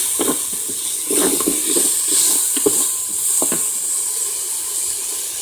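Chopped onions sizzling steadily in hot oil in the pot of a Power Pressure Cooker XL on its sauté setting, with a few short scrapes of a utensil stirring them during the first three seconds or so.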